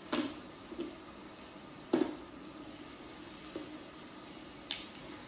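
Thin slices of ribeye sizzling on the hot grill plate of an electric hot pot, with a few sharp clicks of metal tongs as the meat is turned, the loudest about two seconds in.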